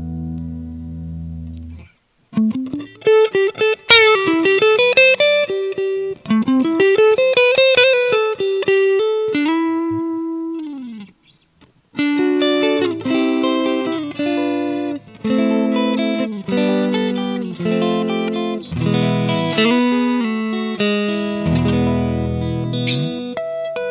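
MUSI Capricorn Fusion electric guitar being played solo: a held chord rings out, then fast single-note lead runs with string bends, and after a brief pause about eleven seconds in, a passage of chords.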